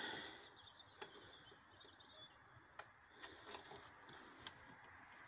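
Near silence, with a few faint clicks spread through it.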